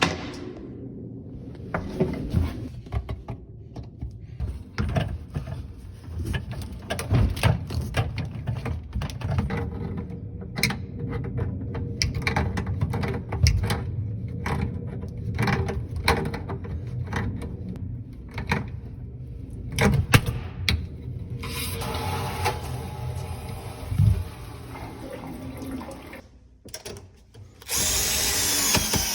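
Irregular knocks, clicks and clatter of tools and parts being handled while a dishwasher is installed, with a loud steady noise for about the last second and a half.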